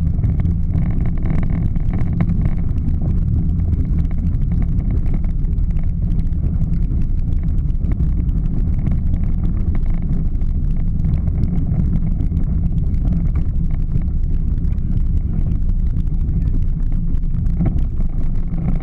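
Pink Power Wheels Jeep driving on asphalt: its hard plastic wheels and electric drive motors give a steady low rumble, heard from a camera mounted on the toy's side.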